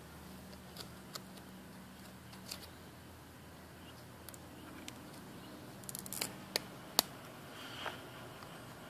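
Faint handling noise from a small plastic-foil adhesive packet being turned in the fingers: a scatter of short crinkles and sharp clicks, bunched about six seconds in, with the loudest single click about a second later, over a faint low hum.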